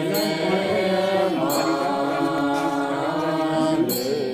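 Tibetan Buddhist monk chanting a prayer text into a microphone, the voice drawn out in long held notes with slow shifts in pitch and no pauses.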